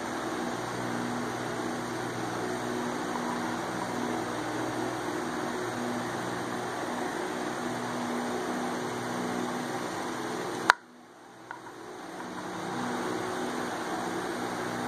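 Steady machine-like background hum with a low drone, of the kind an electric fan or air conditioner makes. About eleven seconds in, a sharp click cuts it off, and it fades back in over a couple of seconds.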